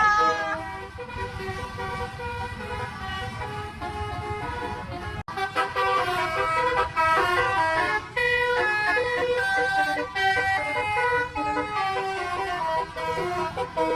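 Bus telolet horn, a multi-tone air horn, playing short melodic tunes of stepping notes over a low rumble. The sound breaks off sharply about five seconds in and resumes louder.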